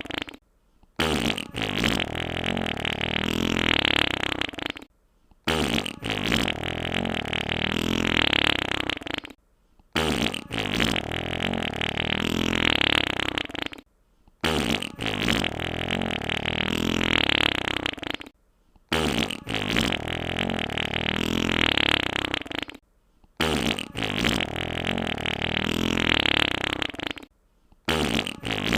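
Wet fart sound effect on a loop: a long, wet, fluttering fart about four seconds long, repeated again and again with a brief silence between each.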